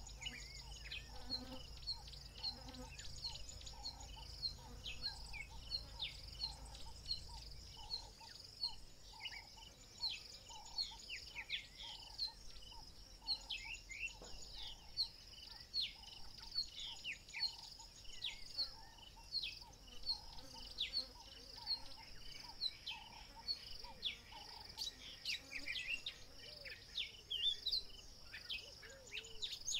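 Bush chorus: a steady high insect trill with many short, falling chirps scattered throughout. A faint low hum stops about eight seconds in.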